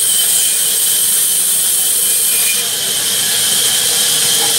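Sawmill band saw running as it cuts through a large log, a loud steady hiss with a high whine.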